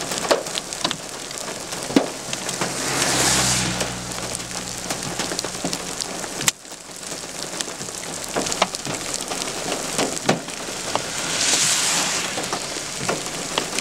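Rain mixed with small hailstones coming down: a steady hiss with scattered sharp ticks of stones striking. Vehicles pass on the wet road about three seconds in and again near the end, each a swell of tyre hiss.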